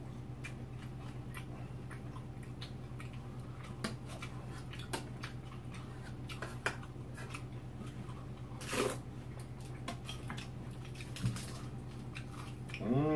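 Quiet eating sounds: scattered light clicks of a spoon and chopsticks against a metal pot and bowls, with faint chewing. A brief louder sound comes about nine seconds in, all over a steady low hum.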